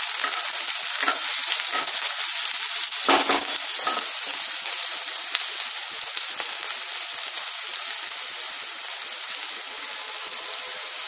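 Chopped onion and panch phoron frying in mustard oil in a nonstick kadai over a low flame: a steady high sizzle. A wooden spatula scrapes the pan a few times in the first four seconds.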